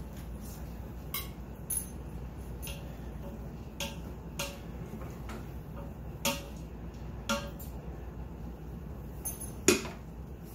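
Table knife clicking and tapping against a butter dish and a glass baking dish as pats of butter are cut and set on the fish fillets: a scattering of separate sharp clicks, the loudest near the end, over a steady low hum.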